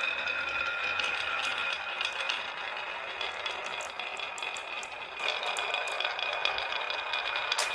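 Marbles rolling and rattling along a marble run track, a continuous clattering rumble with a steady ringing tone over it that shifts about five seconds in.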